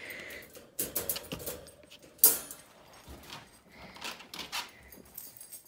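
Wire dog crate rattling and clanking as the dog scrambles out through the open door, with one sharp metallic clank about two seconds in and smaller rattles and clicks around it.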